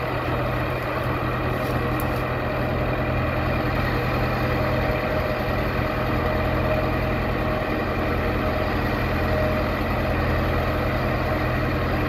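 Six-wheel dump truck's diesel engine running steadily, driving the hydraulic hoist as the dump bed tips up. A steady whine sits above the engine note.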